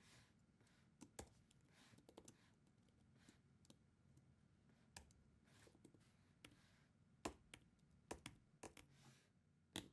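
Faint, irregular clicks of a computer mouse and keyboard, with a quick cluster of clicks near the end.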